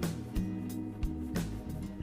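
Background music with a steady beat and a guitar.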